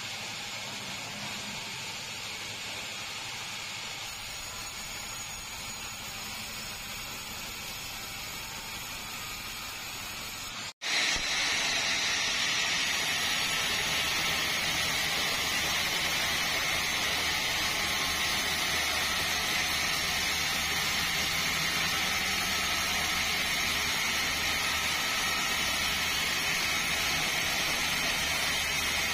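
Sawmill machinery running steadily, a continuous hiss-like noise without a clear rhythm. A cut about eleven seconds in is followed by a louder, hissier stretch that holds steady.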